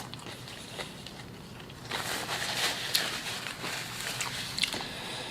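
Chewing and biting food close to the microphone, with small wet mouth clicks. It gets busier and louder from about two seconds in.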